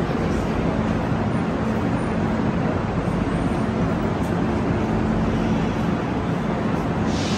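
Wheels of rolling suitcases running over a hard station floor: a steady, continuous rumble, with a low steady hum underneath.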